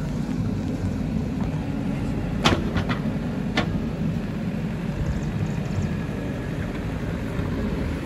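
JCB 3DX backhoe loader's diesel engine running steadily as the machine manoeuvres and swings its boom, with three sharp knocks between about two and a half and three and a half seconds in.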